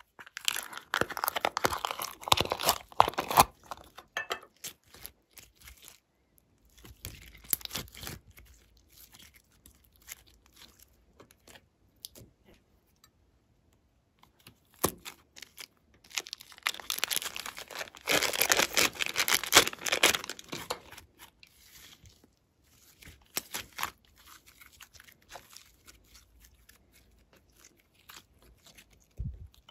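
Plastic crinkling and crackling as a plastic sequin box and a clay-filled plastic piping bag are handled and squeezed. It comes in two long bursts of rustling, one about a second in and one past the middle, with scattered small clicks and taps between.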